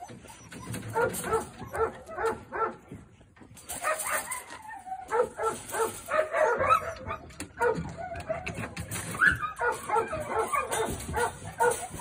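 German Shorthaired Pointer whining and yipping in quick, repeated short cries while it works at a caged bird.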